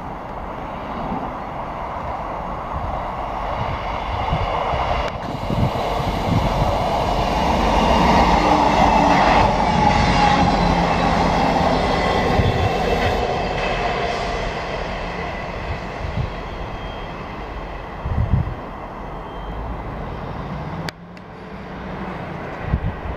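Class 158 diesel multiple unit passing along the main line. Its rumble grows louder to a peak about nine seconds in, then slowly fades as it draws away.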